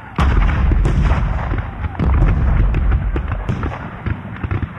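Battle sound effect: many gunshots crackling over heavy cannon booms and rumble. It starts suddenly just after the beginning, is loudest in the first half and fades somewhat toward the end.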